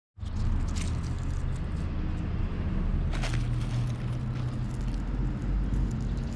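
Steady low rumble with a few brief rustles.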